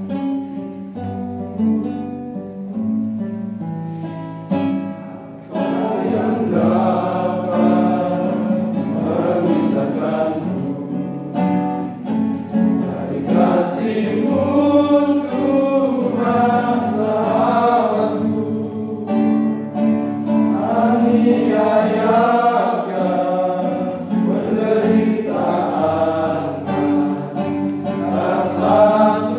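Acoustic guitar playing alone, then a group of men's voices joins in about five seconds in, singing a worship song together over the strummed guitar.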